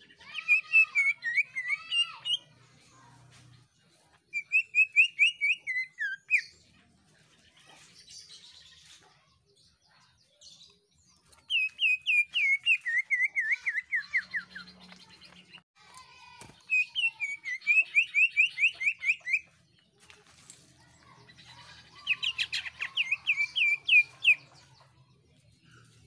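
Cucak ijo (green leafbird) singing shrill phrases of fast repeated notes, five bursts of two to three seconds each with pauses between, some notes sliding downward in pitch.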